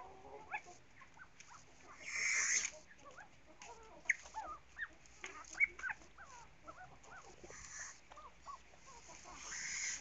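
Birds calling: many short, quick chirps throughout, broken by a harsh, noisy call lasting under a second about two seconds in and another near the end.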